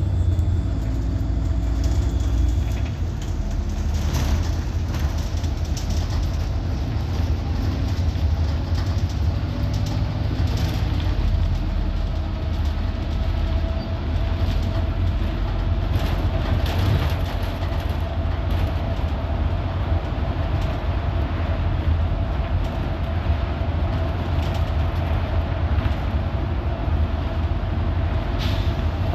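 Ride noise inside a city bus under way: a steady low rumble of the engine and tyres on the road, with occasional rattles and knocks from the body and fittings and a faint steady whine.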